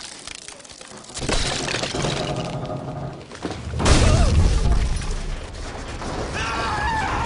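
Cartoon sound effects of a wooden tower cracking and breaking apart, with a heavy crash about four seconds in, then a steady low rumble as the heavy wooden roof and tower roll along the ground.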